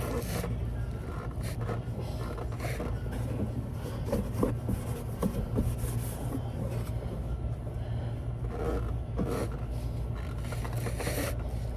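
Scattered scraping, rubbing and light clicks of hands working on a car's underside, as a new oil filter is spun on and snugged by hand. A steady low hum runs underneath.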